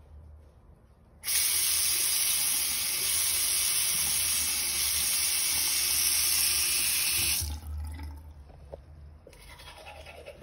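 Bathroom tap running into a ceramic washbasin: turned on about a second in, a steady rush of water for about six seconds, then shut off abruptly.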